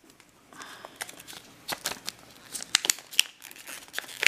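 Thin clear plastic coin bag crinkling and crackling in the fingers as it is opened and a coin is worked out, in quick irregular crackles.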